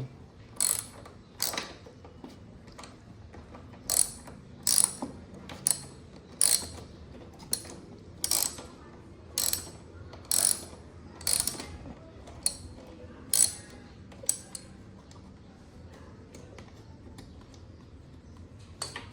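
Ratchet wrench clicking in short bursts, about one a second, as a motorcycle seat bolt is worked loose; the clicking stops about fourteen seconds in.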